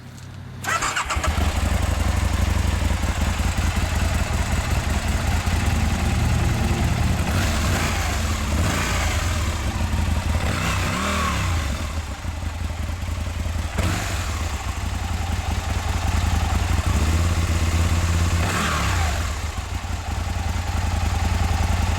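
2009 Aprilia Tuono's V-twin engine on its stock exhaust, started just after the beginning, idling and revved in short blips a few times, then shut off right at the end.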